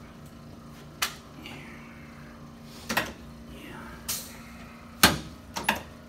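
Sharp clicks and knocks from a padded chiropractic treatment table as a heavy patient shifts and turns onto his back: about five separate knocks, the loudest about five seconds in.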